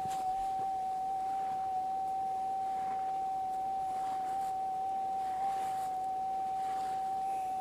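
A metal detector's steady, high threshold tone runs unbroken, with faint scrapes and ticks of hand digging in stony soil underneath it.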